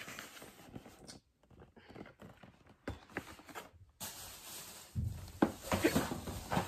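Handling noise from a cardboard box of food storage containers being lifted, tipped and set aside: scattered knocks and rustles, busier in the last two seconds as more packaging is handled.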